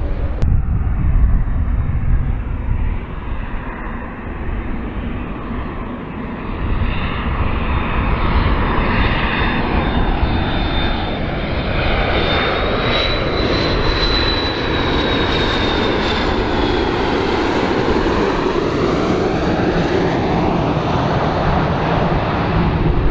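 McDonnell Douglas MD-80-series jetliner on landing approach passing close by: a jet rumble that swells from about six seconds in, with a high turbofan whine that rises and then falls as it goes past, and a sweeping rushing tone that climbs and then drops.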